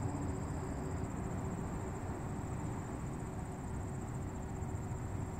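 Low-rider car's engine and road rumble heard from inside the cabin while driving slowly, with a faint steady high-pitched whine above it.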